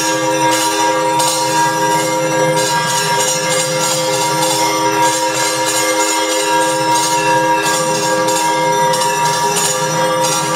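Temple bells clanging continuously, with a dense metallic jingling over them, during a lamp arati before the deity; the ringing holds steady pitches without a break.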